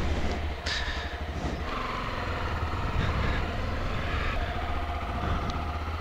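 Motorcycle engine running under way, its note stepping to a new pitch about two seconds in and again a little past four seconds.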